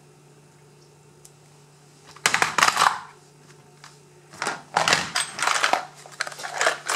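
Metal lock cylinders clinking and rattling in a plastic compartment organizer box as a cylinder is put back and the box is handled and shut. There is a short burst of clatter about two seconds in, then a longer run of clatters and knocks in the second half.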